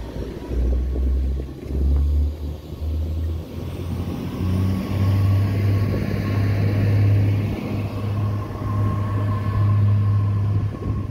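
TER regional multiple-unit trains passing close by at speed: a steady rumble of wheels on rail under a low engine drone that steps up in pitch about four seconds in, with a faint steady whine in the second half.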